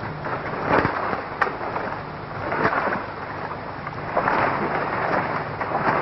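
Rustling and crackling of leafy brush and branches, swelling and fading in waves, with a couple of sharp snaps about a second in.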